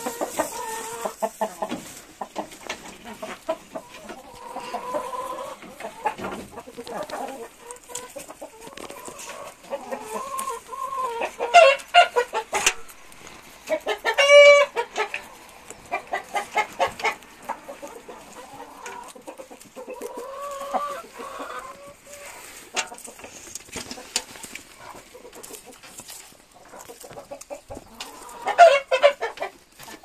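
Hens clucking and murmuring while they feed, among quick taps of beaks pecking. A loud squawk comes about halfway through, and there are louder calls near the end.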